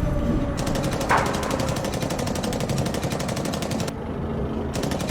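Toy gun firing in rapid automatic mode: a fast, even rattle of shots that breaks off briefly about four seconds in and then starts again.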